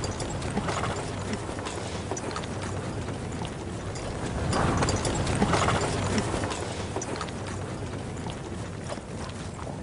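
Horse hooves clopping on dry, stony ground amid a caravan's animals, with scattered small clicks and knocks, growing louder about halfway through.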